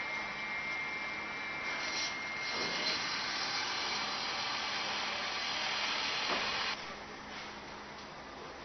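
Construction-site background noise: a steady hiss, louder for a few seconds and then dropping off suddenly about seven seconds in.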